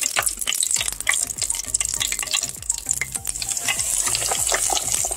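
Flour-coated chicken breast frying in hot oil in a deep fryer: a steady sizzle with dense, irregular crackling pops.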